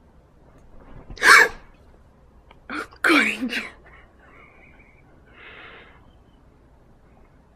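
Two loud sneezes about two seconds apart, followed by a quieter breathy sound.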